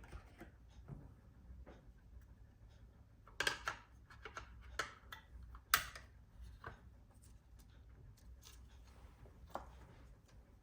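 Scattered small clicks and light taps of laptop parts and small hardware being handled during an HDD-to-SSD swap, with a cluster of sharper clicks about three and a half seconds in and the loudest single click near six seconds in.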